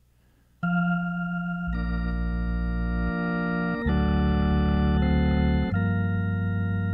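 Hammond B3 organ starting after a brief pause, playing slow held chords with a low bass line under them, the chord changing about every two seconds.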